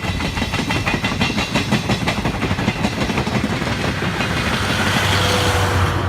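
Passenger train hauled by a DE10 diesel locomotive running past, its wheels clicking over the rail joints in a quick, even rhythm, with a rush of passing noise swelling near the end.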